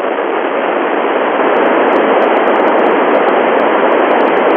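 Steady, loud FM static hiss from an Icom IC-9700 receiver tuned to the Tevel-7 satellite's FM downlink with the squelch open and no signal on the channel.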